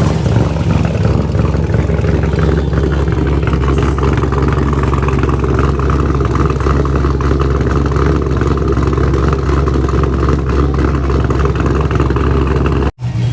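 Car engine running steadily at a loud, deep idle, with a brief sudden dropout near the end.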